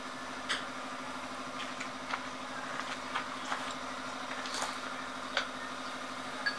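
Steady low machine hum with about eight light clicks and knocks scattered through it.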